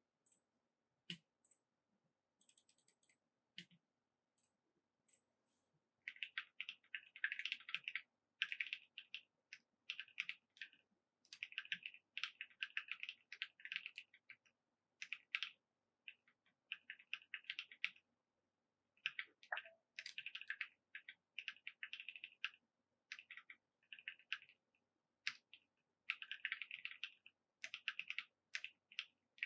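Typing on a 65% custom mechanical keyboard with lubed NovelKeys x Kailh Cream switches, PBT keycaps and a polycarbonate plate. A few scattered keystrokes come first, then about six seconds in, fast runs of typing in bursts with short pauses.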